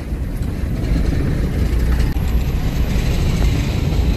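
A car driving, heard from inside the cabin: a steady low engine and road rumble, with more road noise coming in about halfway through.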